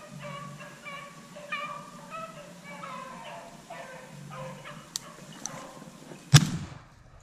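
Hunting dogs baying in short repeated calls on a rabbit's trail, then a single loud shotgun blast about six seconds in.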